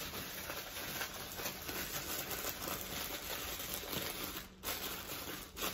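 Plastic bread bag crinkling as it is handled, with a brief lull about four and a half seconds in.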